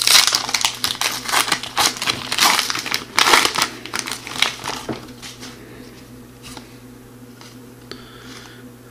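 Crinkling and tearing of a trading-card pack's foil wrapper as it is ripped open by hand. The crackling is dense for about the first five seconds, then dies down to faint rustles as the cards are slid out.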